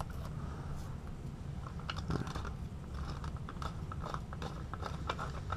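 Light scattered clicks and crinkly scraping as fingers pick and peel a piece off a plastic RC car differential, over a low steady hum.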